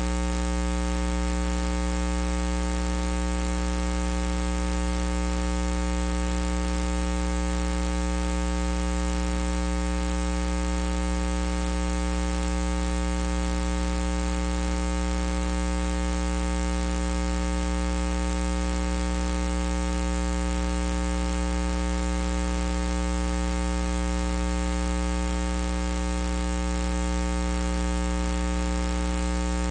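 Steady electrical mains hum, a low buzz that holds unchanged throughout and covers any sound of the bout.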